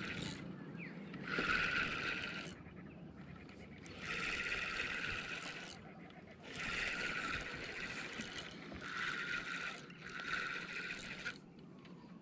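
A person breathing heavily close to the microphone: about five long, hissing breaths, a second or two each, with short pauses between.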